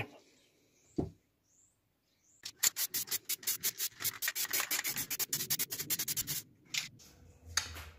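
An aerosol can of spray varnish is being shaken, its mixing ball rattling in quick clacks, about nine a second, for some four seconds. A single knock comes about a second in.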